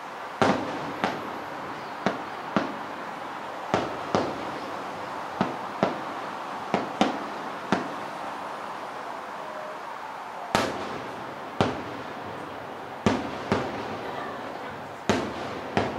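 Aerial fireworks shells bursting at a distance: a run of sharp booms, many in quick pairs about half a second apart, each trailing off in a short echoing tail.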